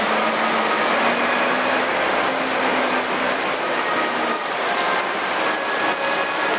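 Heavy rain pouring steadily onto a flooded street, with cars driving through the standing water. A faint low hum is heard for the first four seconds or so.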